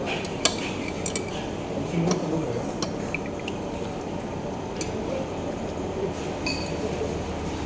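Tableware clinking during a meal: scattered light clicks of utensils against bowls and plates, over a steady background hum, with a brief murmur of voices.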